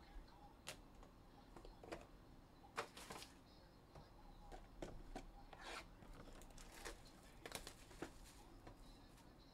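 Quiet, scattered clicks and rustles of trading cards and a clear plastic card holder being handled, with a few slightly sharper taps.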